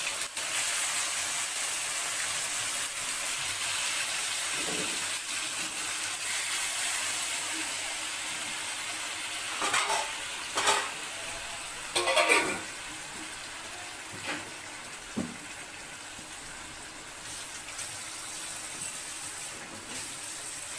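Marinated mutton sizzling in hot oil in a wok as it goes in, a steady hiss that slowly fades. Around the middle come several sharp metal clanks against the wok.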